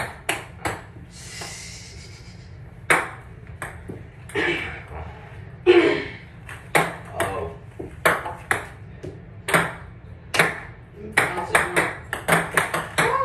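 Ping-pong balls bouncing with sharp, irregular clicks, some striking a small metal cup, with a quick run of bounces near the end.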